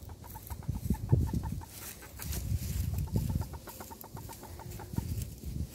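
A hen clucking in a quick run of short notes, several a second, among dry oak leaves that rustle as she moves.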